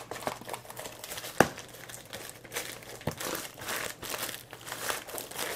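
Plastic mailing bag crinkling and rustling as a cardboard box is pushed into it, with a sharp tap about a second and a half in and a softer one about three seconds in.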